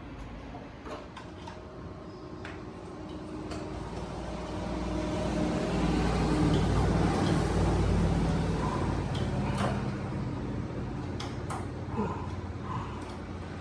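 Scattered clicks and knocks of parts being handled while an air conditioner's indoor unit is dismantled. A low rumble with a steady hum swells up in the middle for several seconds, then fades away.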